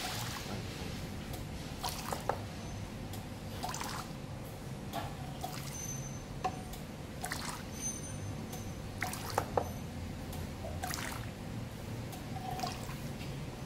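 Two-head benchtop liquid filling machine dispensing repeated short spurts of liquid into a small glass bottle, one every second or two, over a steady low pump hum, with a few light knocks.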